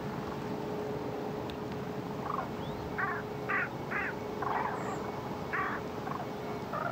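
Common cranes calling in flight: a flock's short trumpeting calls, about eight of them at irregular intervals, starting about two seconds in.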